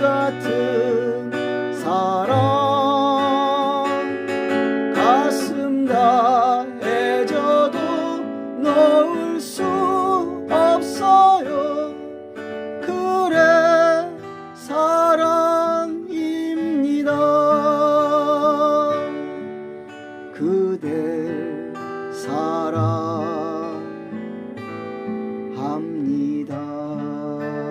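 Acoustic guitar music: a strummed and plucked instrumental passage of a slow ballad, with a held, wavering melody line over the chords.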